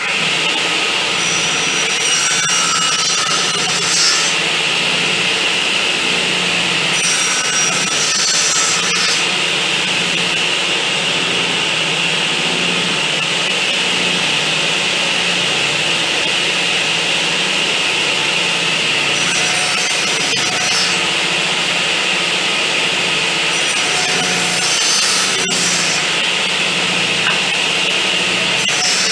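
Circular saw mounted under a saw table running steadily, with several passes of its blade cutting into the end of a wooden piece. It is cutting a tenon in small passes rather than all at once.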